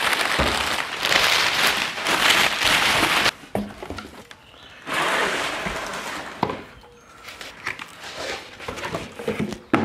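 Brown paper packing crinkling and rustling as it is pulled out of a cardboard shipping box, in two stretches, the first about three seconds long. After that, quieter handling of small cardboard boxes with a few light knocks and clicks.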